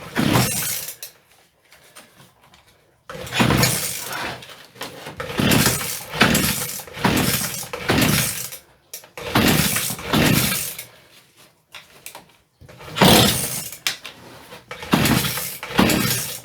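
Two-stroke strimmer engine being pull-started on choke: about ten pulls of the recoil starter, each a rasping spin that falls in pitch as it winds down, without the engine ever firing. The strimmer is a non-runner that won't start.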